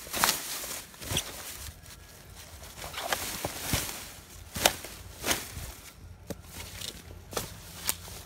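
Footsteps through grass and dry leaves, irregular crunching and rustling steps over the undergrowth.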